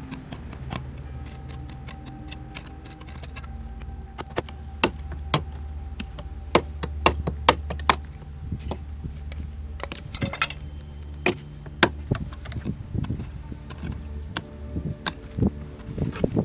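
Small metal hand tool digging into stony soil: a run of sharp clinks and knocks as it strikes and scrapes stones, over a low steady hum.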